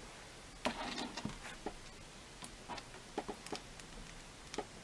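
Faint scattered clicks and taps of a plastic NECA MacReady action figure being handled, small parts pulled off and pushed into place.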